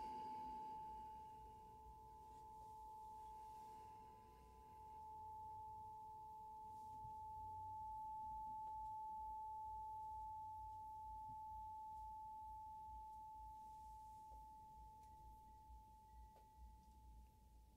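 A struck sound-healing instrument rings one pure, high, bell-like tone. The note swells and fades slowly as it sustains, then dies away near the end.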